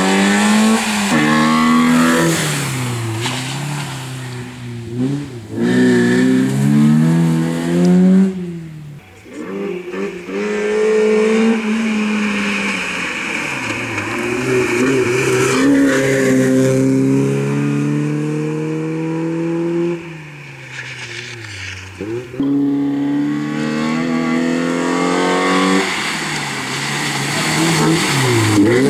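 BMW E30 318is rally car's four-cylinder engine driven hard, revving up and dropping back at each gear change as the car passes at speed. Its pitch climbs and falls repeatedly, fading briefly about a third of the way in and again after about twenty seconds.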